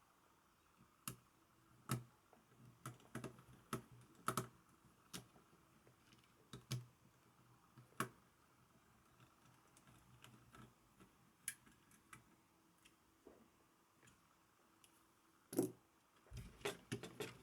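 Light, irregular clicks and taps of a graphics card and its small plastic and metal parts being handled, with a louder cluster of knocks near the end.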